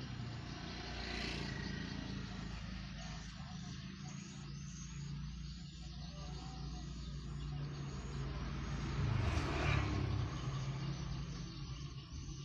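Street traffic heard from inside a parked car: a steady low engine hum, with a motorbike passing close and loudest about nine to ten seconds in.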